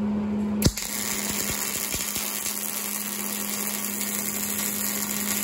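An electric welding arc strikes with a sharp pop about half a second in, then crackles and hisses steadily as a weld bead is run on the steel weight-rack parts, over a steady low hum.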